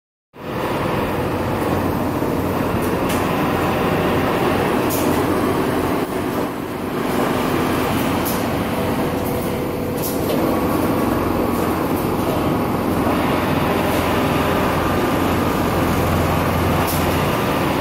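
Richpeace CNC automatic template sewing machines running with a steady mechanical hum and whir, broken by a few sharp clicks and knocks, in the general din of a garment factory floor.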